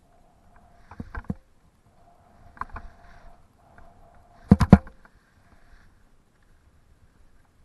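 Skis sliding and scraping over firm groomed snow through turns, with a faint steady hiss-like tone between them. Three clusters of sharp knocks come about one, two and a half, and four and a half seconds in, the last the loudest.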